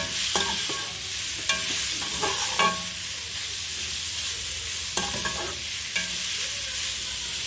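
Shredded cabbage, carrot and capsicum sizzling in oil in a stainless-steel kadhai as a steel spatula stirs them, with several sharp metal-on-metal clinks and scrapes of the spatula against the pan.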